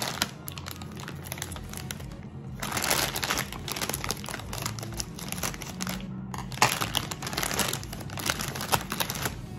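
A plastic multipack bag of chocolate bars crinkling as it is handled and cut open with scissors, with louder bursts of crinkling about three seconds in and again about seven seconds in.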